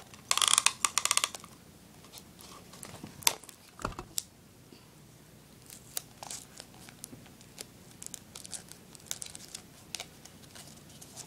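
Adhesive tape pulled off the roll with a quick rattling rip about a second long near the start, then scattered crinkles and small taps of paper and tape being handled.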